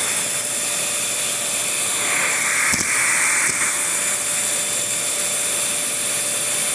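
Vacuum cleaner running steadily with a constant high whine over its rushing air noise. Two faint clicks come about three seconds in.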